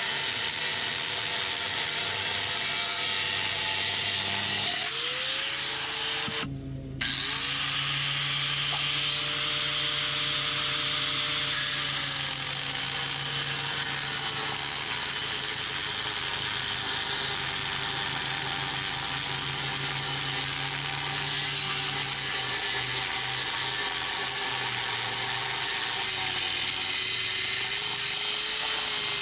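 Corded angle grinder with an abrasive cut-off wheel cutting through 3/4-inch B7 steel threaded rod, the wheel grinding steadily against the steel. The motor's pitch rises twice, around five and seven seconds in, with a short break between, then slowly sags as the wheel bites into the rod.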